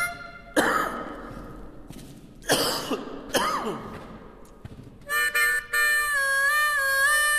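A person coughs three times, in short harsh bursts. About five seconds in, a harmonica starts again, holding a chord whose notes waver up and down in bends.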